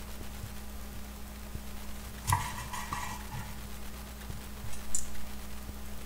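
Kitchen knife slicing a peeled orange on a wooden cutting board. There is a sharp knock of the blade on the board a little over two seconds in, a few softer knocks just after, and a crisp click near the end, over a low steady hum.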